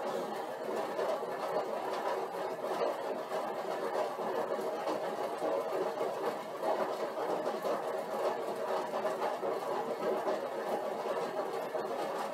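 Stationary exercise bike whirring steadily as it is pedalled at a light warm-up load of 100 watts.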